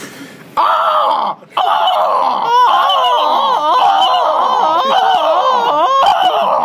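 High-pitched vocal wailing and screaming with a wobbling, warbling pitch, broken by a short gap about a second in. These are exaggerated mock cries of lovemaking.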